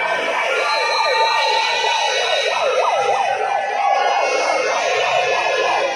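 Siren sound in a fast yelp pattern: rapid up-and-down wails overlapping one another, loud and continuous, dropping away right at the end.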